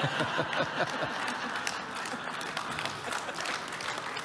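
Audience applauding, many hands clapping at once, with laughter mixed in during about the first second.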